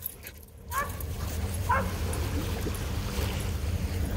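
A low, steady engine drone comes in about a second in, with a couple of short high whines from a black dog waiting for its ball.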